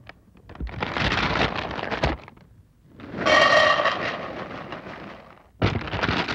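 Dry cereal rattling out of a cardboard box into a bowl, in three bursts of pouring and shaking; the middle burst has a ringing tone over the rattle.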